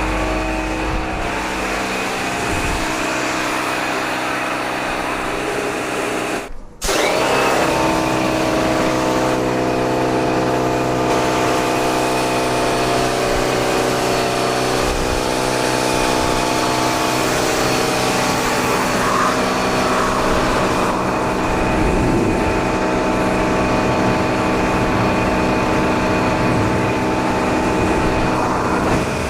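Bosch electric high-pressure washer running steadily, its motor whine over the hiss of the spray. The sound drops out for a moment about seven seconds in, then runs on.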